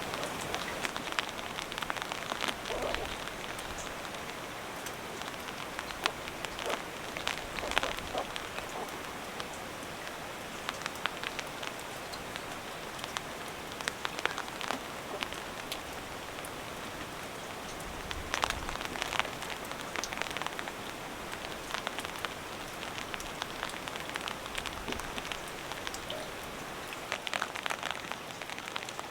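Steady rain falling on the hut and around it, with irregular louder drips and taps scattered through.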